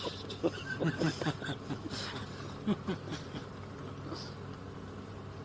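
A voice briefly says a few quiet words, 'What more?', in the first few seconds. After that only a steady low hum with hiss remains.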